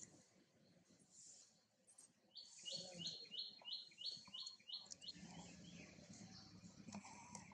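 A bird calling: a quick run of about eight repeated high chirps, roughly three a second, each dipping slightly in pitch. After it, a faint low rumble.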